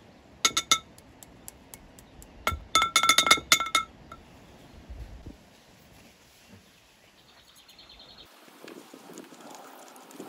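Ringing clinks of glass beakers knocking together as magnesium grains are shaken from a small beaker into a 250 ml beaker of boron oxide sand. The clinks come in two clusters, a couple about half a second in and a quick run of several around three seconds in.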